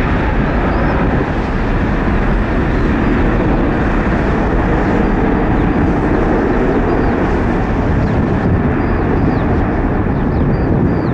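Loud, steady jet engine noise from an aircraft at close range.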